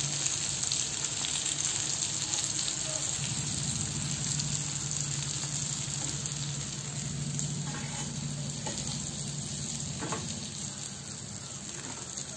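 Rava-coated ridge gourd slices sizzling steadily in shallow oil in a nonstick frying pan, with a few light taps of the fork and spatula as they are lifted out.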